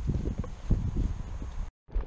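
Wind buffeting a body-worn camera's microphone: uneven low thumps and rumble with light rustling. It cuts out abruptly near the end.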